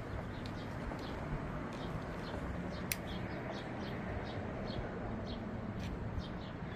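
Steady low background hum with short, high chirps or ticks repeating a few times a second, and one sharp click about three seconds in.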